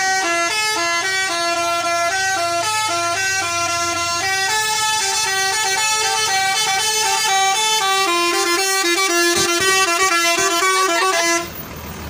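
Tour bus's telolet basuri horn playing a fast, loud melody of quick stepped notes, stopping abruptly near the end.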